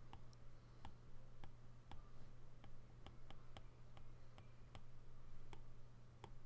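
Faint, irregular clicks of a stylus tip tapping and tracing on an iPad's glass screen during handwriting, about two or three a second.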